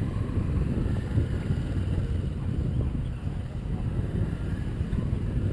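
Wind buffeting the microphone in a steady, fluttering low rumble, with motorcycle engines running faintly in the distance.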